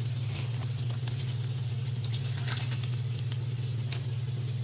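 Egg rolls deep-frying in oil in a skillet: steady sizzling with scattered crackles, over a steady low hum.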